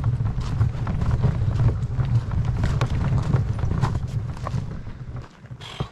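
A loaded canoe being pushed up a road on a portage: a steady low rumble of wheels on the ground with crunching footsteps, fading out near the end.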